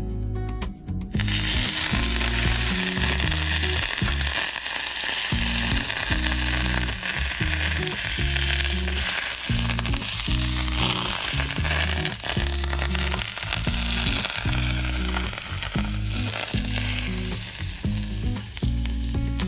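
Hot peanut oil poured over a steamed fish topped with cilantro and green onions, sizzling as it hits. The sizzle starts about a second in and carries on steadily, thinning slightly near the end.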